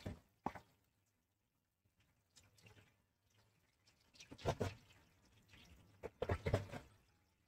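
Faint, scattered handling sounds of a small spice jar being shaken over a spiral potato on newspaper: a few soft knocks and taps, the clearest about halfway through and a short cluster near the end.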